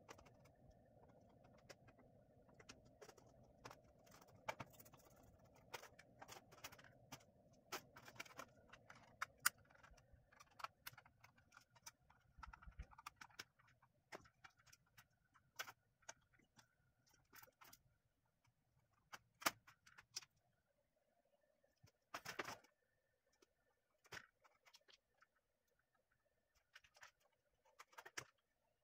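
Scattered small clicks and clinks of a screwdriver and small parts being handled while an LED ceiling lamp is taken apart, over a faint low hum that stops about two-thirds of the way through.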